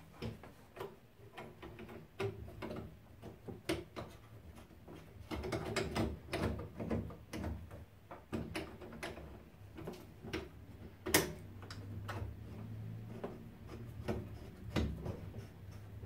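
Hands working inside a combi boiler's pipework, fitting new pipe seals: irregular light clicks, knocks and rubbing of metal and plastic parts, with one sharper knock about two-thirds of the way through.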